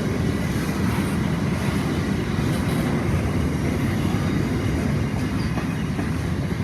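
Long freight train's wagons rolling past at close range: a steady, continuous noise of steel wheels on the rails with faint clicks.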